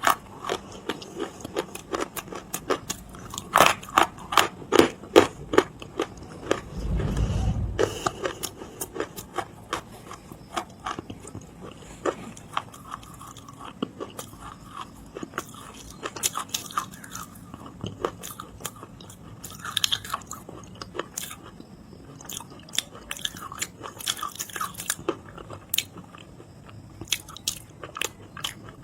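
Close-miked biting and chewing of dry clay: a run of crisp crunches, dense over the first several seconds and then sparser and lighter as the pieces are chewed down. About seven seconds in there is a brief low rumble lasting around a second.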